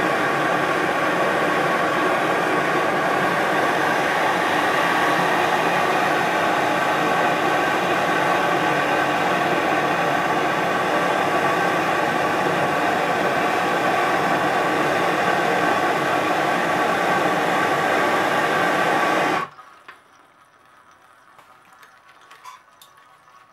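MAP gas torch flame running steadily as it heats a copper sweat joint on a brass shower valve for soldering. The flame cuts off suddenly about 19 seconds in, leaving a few faint ticks.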